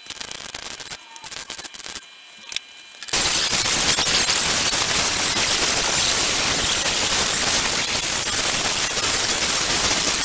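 Arc welding on a car's steel sill: a few short crackling bursts of tack or stitch welds, then from about three seconds in a continuous, loud crackling weld run.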